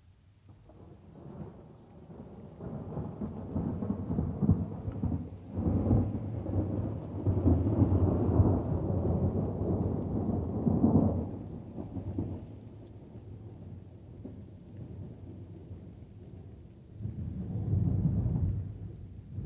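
Rolling thunder with light rain. A long rumble builds out of near silence over the first few seconds, rolls loudest through the middle and dies away to a low grumble; a second, shorter rumble swells near the end.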